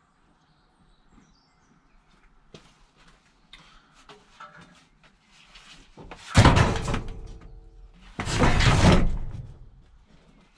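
Vehicle door being slid and slammed: two loud, scraping noises, each about a second long, about two seconds apart, after a few seconds of faint rustling.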